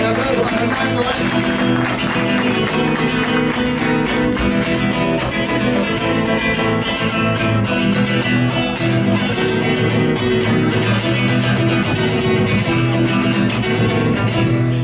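Acoustic guitars playing an instrumental passage of an Argentine folk song between sung verses.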